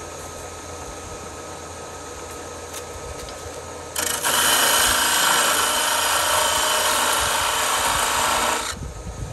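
Shopsmith lathe running, then a parting tool pushed straight into the spinning wood about four seconds in: a loud, even scraping cut for about five seconds that stops suddenly as the tool is pulled back out, setting the depth of a cove.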